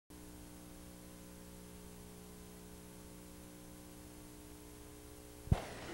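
Steady electrical hum with faint hiss over a blank stretch of videotape. Near the end it is cut off by a sudden low thump as the recorded sound cuts in.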